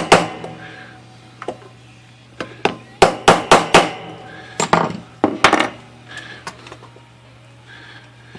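Hammer blows on the bent steel carriage end rail of a Royal 10 typewriter, struck against a steel block to straighten it: sharp metal strikes in quick bursts of several, with short ringing after some, then only light taps near the end.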